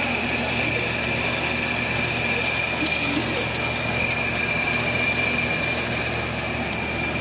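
Fish feed pellet machinery running steadily, with a constant high whine over a low hum.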